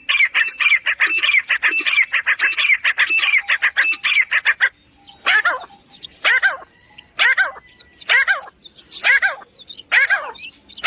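Grey francolin (teetar) calling loudly: a fast run of repeated calls for about four and a half seconds, then it changes suddenly to separate falling calls about once a second.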